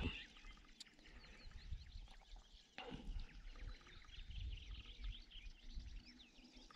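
Small birds chirping and twittering in the background over a low rumble, with a single short knock about three seconds in.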